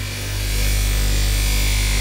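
Background electronic music with a steady low drone.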